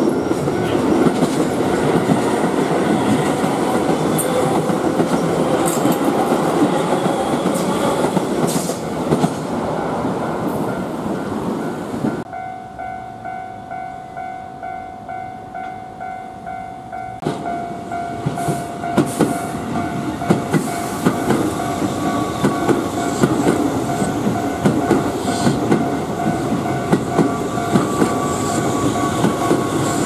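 Keihan Main Line electric trains running over a Japanese level crossing, wheels clattering over the rail joints, while the crossing's electronic warning bell rings steadily. About twelve seconds in, the train noise cuts out abruptly and for some five seconds the bell alone is heard, about two strokes a second. Then the clatter of a passing train returns.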